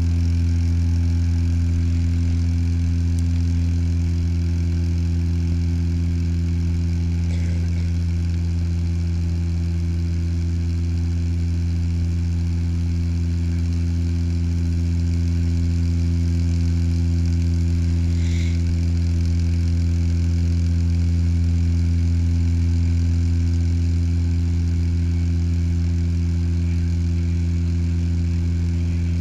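Turboprop airliner's propellers and engines heard from inside the cabin: a steady deep drone with several even tones stacked above it. Two faint brief chirps sound about a third and two thirds of the way through.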